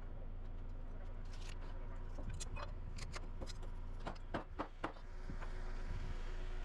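Scattered sharp knocks and taps of framing work on lumber, with a quick run of four knocks about four seconds in, over a steady low rumble.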